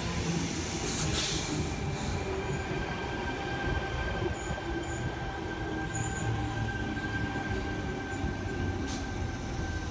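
Sydney Trains Tangara electric suburban train (set T109) running at the platform: a steady rumble, joined about two and a half seconds in by a steady high-pitched squeal or whine, with a few sharp clicks.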